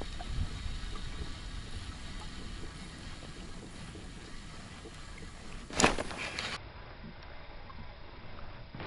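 Wind on the microphone and small waves lapping at a boat's hull, with one short loud rush of noise about six seconds in.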